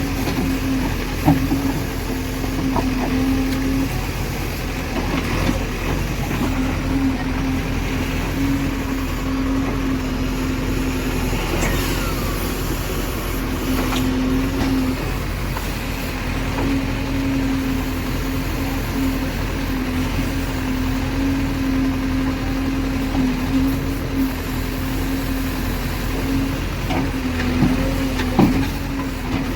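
Diesel engine of a JCB 3DX backhoe loader running steadily under work, with a steady hum that drops out and comes back several times and a few short knocks.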